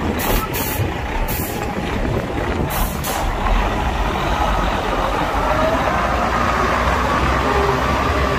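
Heavy diesel machinery (dump truck and excavator) running steadily with a low rumble. Several short hisses come in the first three seconds, and a wavering squeal rises in over the last few seconds.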